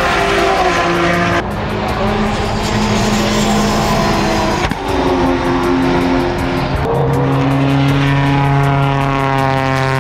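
Modified time-attack race car engines running at high revs as the cars pass at speed, several different cars one after another with abrupt cuts between them. The last engine note sinks slowly in pitch as that car goes by.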